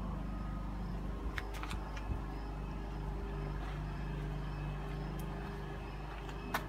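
Steady low motor hum, holding the same pitch throughout, with a few faint clicks.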